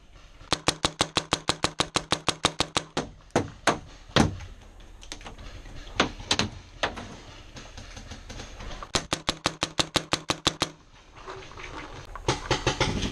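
Paintball markers firing in rapid strings of shots, about eight a second: a long string in the first few seconds, a handful of single shots, then another long string about nine seconds in.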